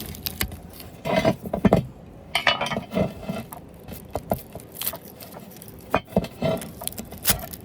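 Metal clinks and scrapes of a screwdriver prying and pulling copper windings out of a bench grinder motor, coming in irregular bursts.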